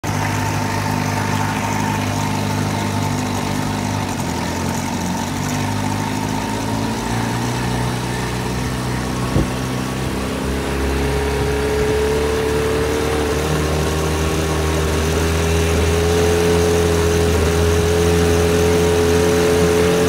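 1980 Sea King (Chrysler) 15 hp two-cylinder two-stroke outboard running at low throttle and being opened up slowly, its pitch and loudness climbing gradually through the second half, with one sharp tick about halfway through. The top cylinder misfires from quarter to half throttle, which the owner traces to a faulty ignition coil.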